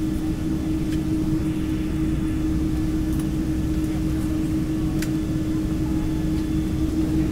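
Steady cabin noise of an airliner taxiing, heard from inside the cabin: a low rumble with a constant hum, and a few faint clicks.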